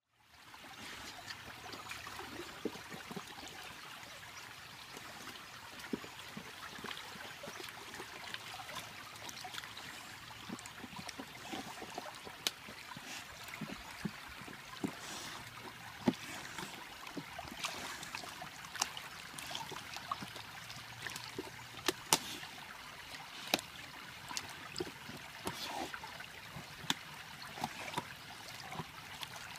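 Shallow stream running over rocks, a steady trickling rush of water. Scattered sharp clicks and snaps stand out above it as a dog gnaws and tugs at a rotten, waterlogged log.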